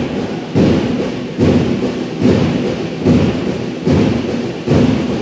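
A drum beaten in a steady rhythm, six strokes about every 0.8 seconds, each thump fading away before the next.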